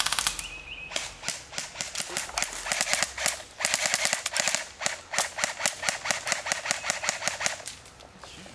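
Airsoft guns firing on full auto in long, rapid strings of sharp cracks, about ten shots a second, which stop near the end.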